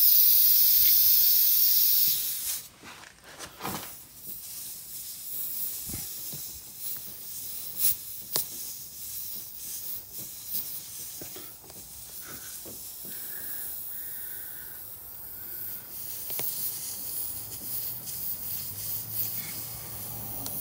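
Air hissing out of a punctured tubeless lawn tractor tire through the nail hole, loud for the first two and a half seconds and then fainter. Scattered clicks and scrapes run through the fainter hiss.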